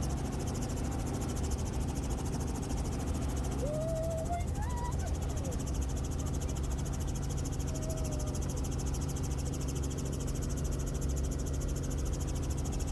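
Steady low hum under faint high chirring, with a few short rising whistles about four to five seconds in and a softer one about eight seconds in.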